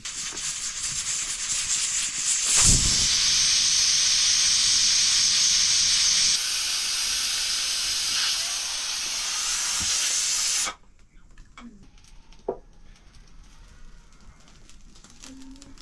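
Loud, steady hiss from a hot cooking pan. It swells, jumps up with a thud about three seconds in, and stops abruptly near eleven seconds, leaving only a few faint clicks.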